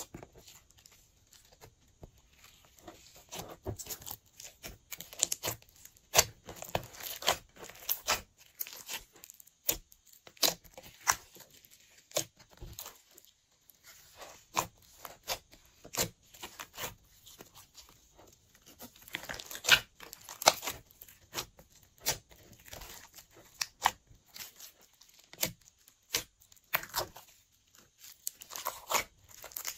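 Glossy slime being kneaded and stretched by hand, giving a run of irregular sticky pops, clicks and crackles, with some louder snaps.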